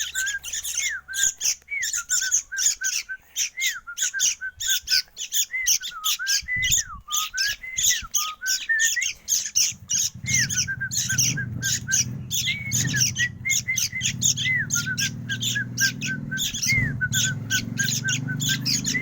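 Bird calls used as a bird-taming whistle: quick chattering chirps, several a second, with short whistled notes gliding up and down. A steady low hum joins about halfway through.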